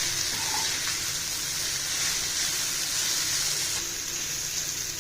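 Ragi vermicelli, onions and carrot being stirred in hot oil in a kadai, sizzling steadily.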